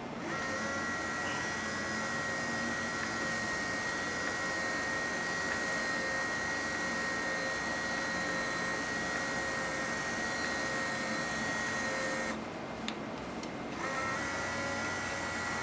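Small electric motor of a motorized 1-inch aluminium venetian blind running with a steady whine as it hauls the slats up. After about twelve seconds the motor stops as the blind reaches the top, a single click follows, and about a second and a half later the motor starts again.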